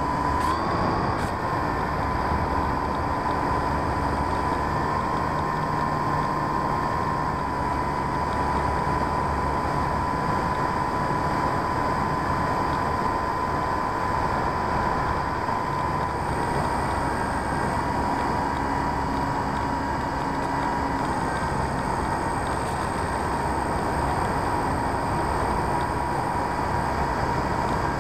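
Onboard sound of an RC P-51D Mustang model in flight: the steady high whine of its electric motor and propeller over constant wind rush. The whine shifts slightly in pitch a few times as the throttle changes.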